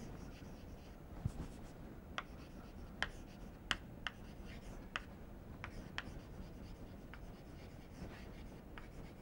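Chalk writing on a chalkboard: a faint series of short, irregular taps and scratches as letters are written.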